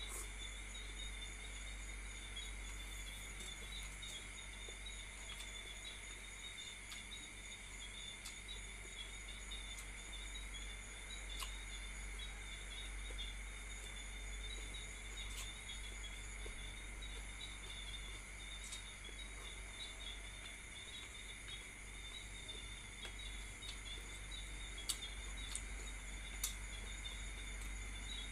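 Crickets chirping in a steady, continuous chorus of high pulsing trills, over a low hum, with a few sharp clicks near the end.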